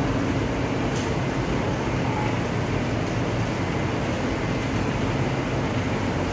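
Heavy rain pouring steadily onto a wet concrete yard and roof, an even rushing hiss with a low rumble underneath.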